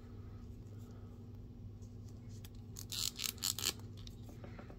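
Plastic action-figure parts being handled and fitted, a short run of light clicks and rustles about three seconds in, over a steady low electrical hum.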